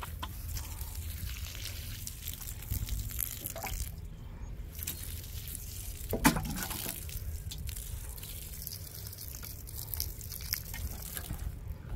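Water trickling and dripping from a plastic watering can onto garden soil, with a single knock about six seconds in.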